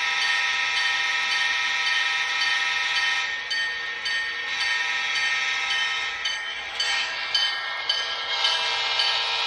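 Onboard sound system of an HO scale MTH GP38-2 model diesel locomotive (Proto-Sound 3.0) sounding its diesel air horn: a steady multi-tone chord through the model's small speaker, thin and without bass. It starts abruptly and in the last few seconds breaks into short uneven blasts.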